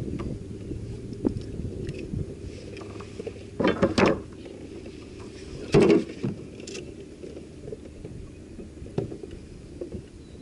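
Fishing kayak being towed by a hooked catfish: a low steady rush of water along the hull, with two short, louder noisy bursts about four and six seconds in.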